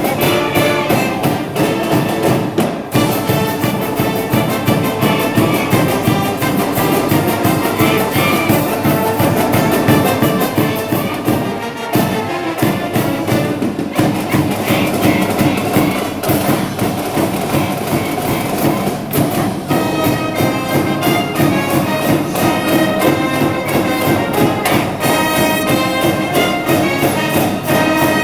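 High-school brass band playing a baseball cheering medley, brass over a steady, driving drum beat.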